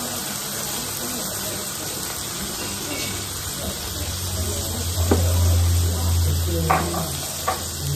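Slices of venison sizzling on a hot cast-iron griddle plate, a steady hiss. A low hum swells in the middle, and a few light clicks come near the end.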